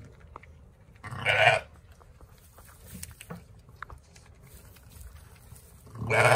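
Sheep bleating: two short, loud calls, one about a second in and one near the end.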